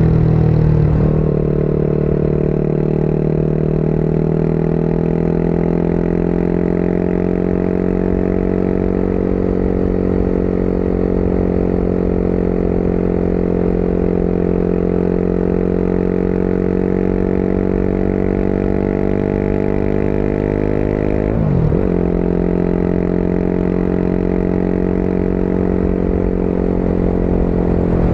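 Motorcycle engine running steadily at cruising speed under wind noise on the microphone. Its pitch creeps slowly upward, then drops sharply and picks back up about three-quarters of the way through.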